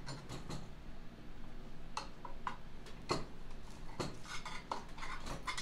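Metal drivetrain parts from a Snapper rear-engine rider's rear end clinking and knocking as they are handled on a workbench: a handful of scattered, sharp clinks and clanks.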